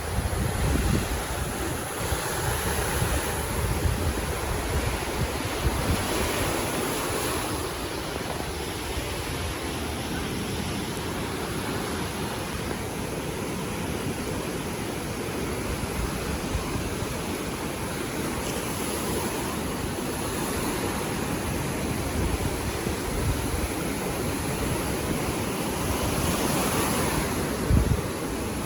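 Sea surf washing onto the beach in a steady roar that swells every several seconds, with wind rumbling on the phone's microphone.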